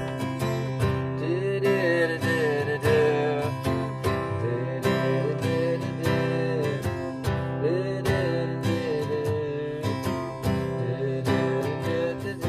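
Acoustic guitar strummed in a steady rhythm, with a wavering melody line carried over the chords.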